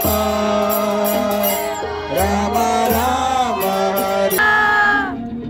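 A group of men chanting a devotional mantra together over a steady drone, with short bright strikes now and then. The chant fades out near the end.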